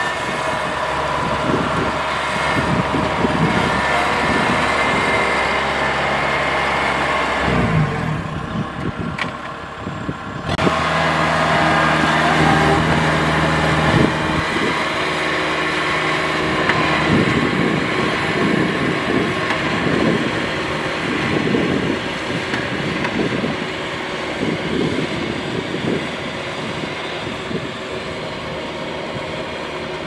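Kubota DC70 rice combine harvester's diesel engine and machinery running steadily as it travels on its tracks over rice stubble. The sound dips briefly about a third of the way in, then comes back up.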